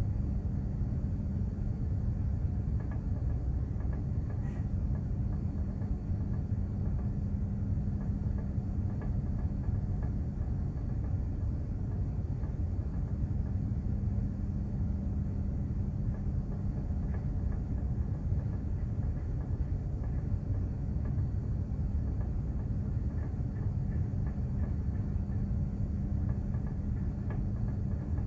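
Steady low rumble of a container ship under way, heard on board from its engine and machinery, with a constant hum running through it.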